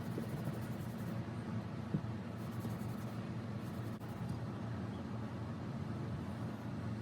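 Steady scratchy rubbing as the metal coin bank is worked over by hand during cleaning and polishing, with one light knock about two seconds in.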